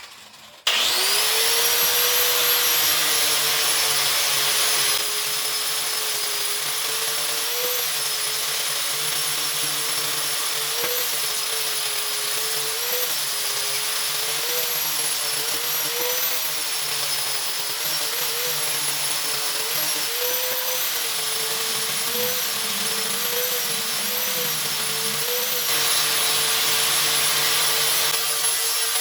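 An electric power tool's motor spins up about a second in and runs steadily with a high whine and a hiss. Its pitch dips briefly many times, as the motor takes load in the wood.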